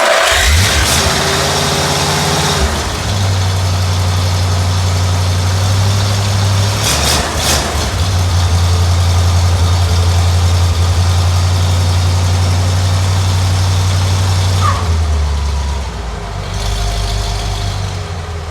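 Freshly rebuilt flathead V8 engine starting up, running unevenly for the first couple of seconds, then settling into a steady fast idle. About fifteen seconds in the engine speed drops and it runs on at a slower, quieter idle.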